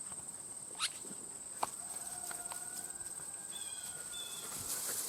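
Insects trilling steadily at a high pitch, with two sharp clicks about a second and a second and a half in and light footsteps.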